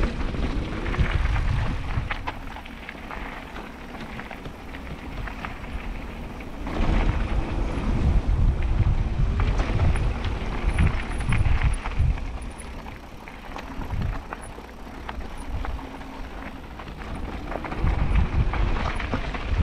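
Wind buffeting the microphone of a mountain biker's action camera, rising and falling in gusts, with tyres crunching on a gravel trail and the bike rattling over bumps.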